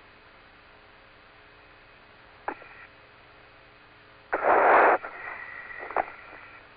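Apollo lunar-surface radio link with no one talking: a steady hiss, a click about two and a half seconds in, then a loud burst of static near the middle with faint steady tones under it, and another click about six seconds in, as the channel keys open and shut.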